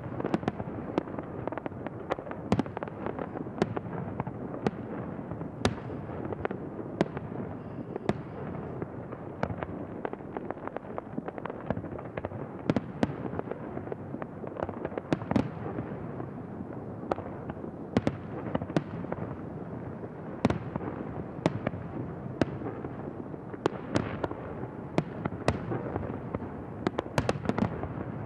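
Fireworks display: a continuous rumble and crackle of bursting shells, with sharp bangs every second or so and a denser cluster of bangs near the end.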